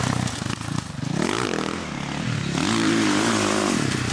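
Dirt-bike (motocross) engine revving up and down, its pitch climbing and falling about a second in and climbing again to a held high rev near three seconds before dropping.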